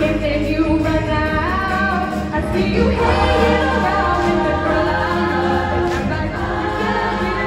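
A large women's chorus singing a stage song-and-dance number over instrumental accompaniment with a steady bass line.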